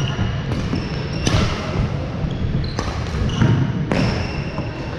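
Badminton rally: rackets strike the shuttlecock with sharp cracks, four times about a second or so apart, while sneakers squeak on the wooden court floor. A low rumble of the large hall runs underneath.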